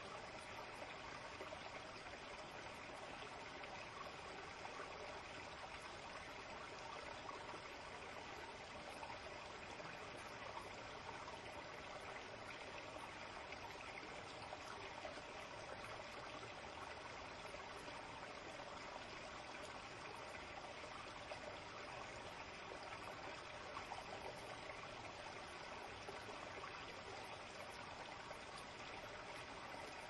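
Shallow forest stream running steadily, a faint, even trickle of water with no breaks.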